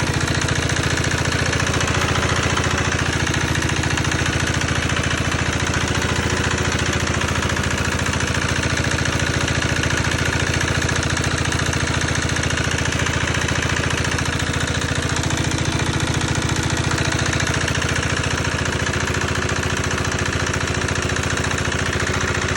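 Chicken feed pellet machine running steadily with a constant mechanical drone and fine, even pulsing.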